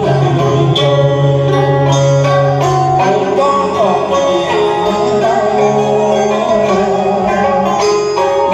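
Instrumental backing music for a Vietnamese song: sustained bass notes, melodic lines and a steady light jingling percussion, with no voice clearly carrying the tune.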